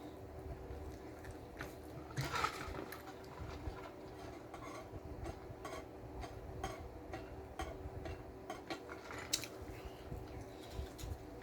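Close-miked eating sounds from a BLT sandwich: chewing, with scattered small clicks and taps and one louder rustling burst about two seconds in, over a steady low hum.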